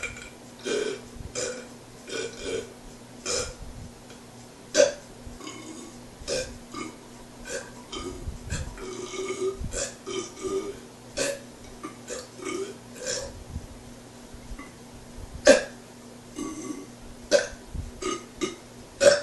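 A man belching on command: a long string of short burps one after another, with two sharper, louder ones about five seconds in and past the fifteen-second mark.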